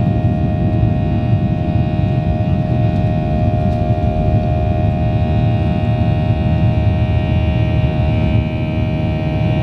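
The Boeing 737-800's CFM56-7B turbofan engines running at takeoff thrust, heard inside the cabin from beside the engine as the jet rolls and lifts off. A steady low rumble with a steady multi-tone whine on top.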